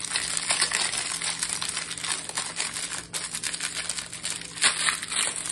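Crinkling and rustling of thin phyllo pastry sheets and their plastic wrapping being handled, with a louder crinkle near the end.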